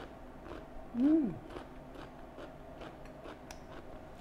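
Close-up chewing of crunchy cauliflower florets coated in gochujang, with soft crunches about two or three times a second. A short hummed "mm" about a second in.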